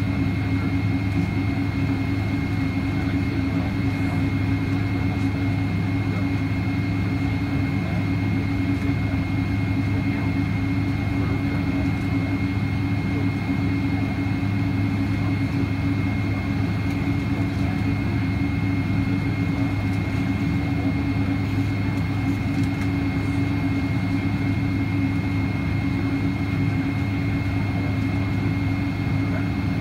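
Steady cabin noise inside a Boeing 777-200 with its engines at idle on the ground: a low, even drone with a thin, steady high whine over it.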